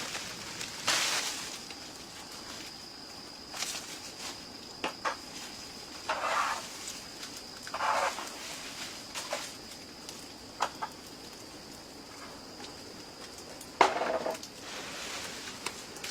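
Farm poultry calling, three short calls several seconds apart, with scattered light knocks and a steady thin high tone in the background.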